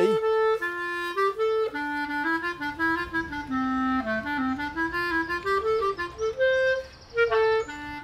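Background music: a woodwind-led melody of short held notes stepping up and down, with a second line of notes above it.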